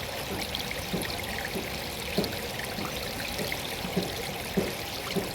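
Falling water pouring steadily, with irregular gurgling plops where it splashes into water below.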